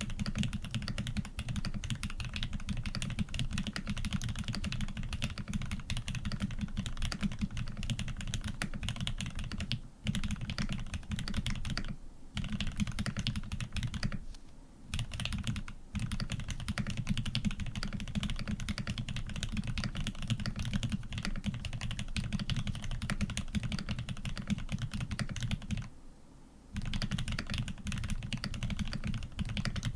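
Continuous fast typing on a PC Montage custom mechanical keyboard with Aquaking switches, a polycarbonate plate and PBT keycaps: a dense run of deep key clacks, broken by a few brief pauses.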